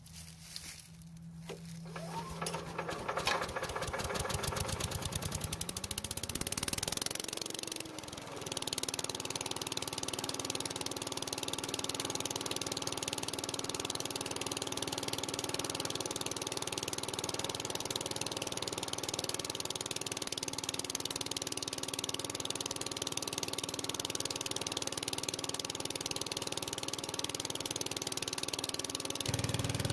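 Predator 301cc single-cylinder engine on a walk-behind leaf blower starting up on its first run. Its firing strokes speed up over the first few seconds, it dips briefly at about eight seconds, and then it runs steadily with the blower's air rushing.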